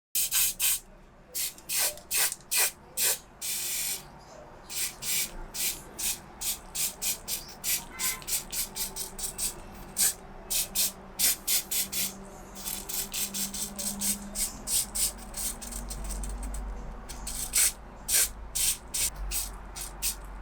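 Spray paint hissing out in many short, irregular bursts, with one longer burst about three and a half seconds in.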